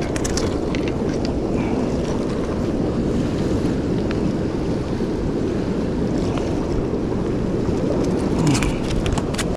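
Fast-flowing, churning water rushing past a concrete bank: a steady roar, with a few light clicks near the start and near the end.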